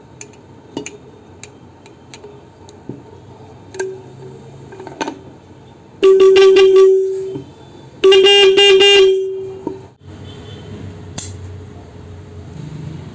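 Roots Vibrosonic 12 V disc horn sounding in two loud steady blasts, each about a second and a half long and about two seconds apart. It is powered straight from a battery and tested while its adjustment screw is tightened until the tone comes good. Before the blasts come light clicks of the screwdriver and wire against the horn's terminals.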